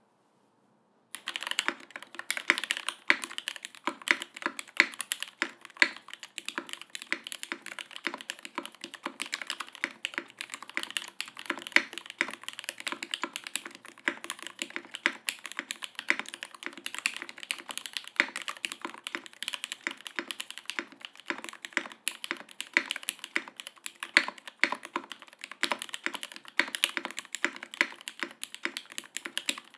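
Typing on a custom mechanical keyboard with lubed Cherry MX Black Hyperglide linear switches in a top-mounted brass plate with no foam dampening, and GMK keycaps. Dense, continuous keystroke clacks start about a second in.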